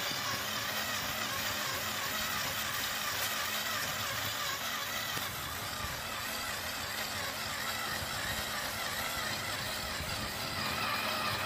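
Lego electric motor and gear train turning a rotating platform, running as a steady whir and hum.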